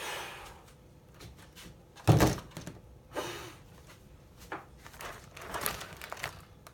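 Handling noises while unpacking a toy blaster: brief rustles and scrapes, with one solid thunk about two seconds in, like something set down hard on a surface.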